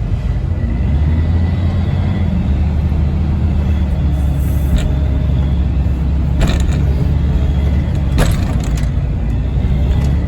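Tractor loader's engine running steadily under load, coming up in revs about a second in, while the bucket works at a large snowball. Several sharp clanks break in, three of them in the second half.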